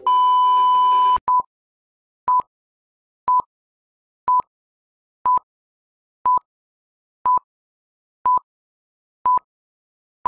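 A steady electronic test tone over static hiss for about a second, then short beeps of the same pitch once a second: a film-leader countdown.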